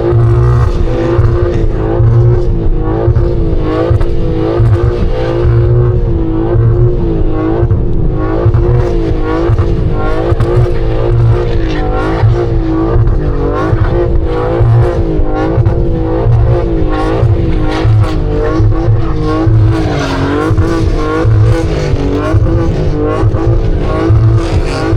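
BMW G80 M3 Competition xDrive's twin-turbo straight-six running hard at high revs, its pitch swinging up and down about once a second as the throttle is worked with the tyres spinning in snow.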